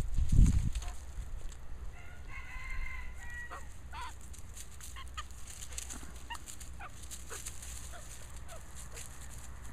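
Australian magpie calling: one longer call about two to three seconds in, then a scatter of short chirps. A low thump in the first second is the loudest sound.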